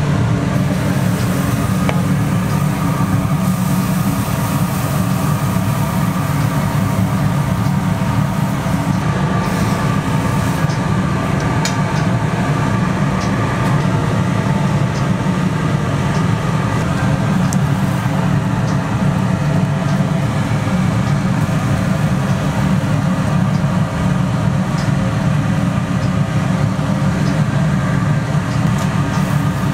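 A steady low roar with a constant hum running under it, from the stall's gas-fired griddle, with a few faint clicks.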